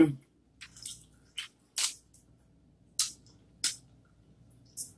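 A person eating a seafood boil of crab legs and crawfish with their hands: short, sharp wet smacks and clicks from the mouth and shells, about seven of them, spaced irregularly.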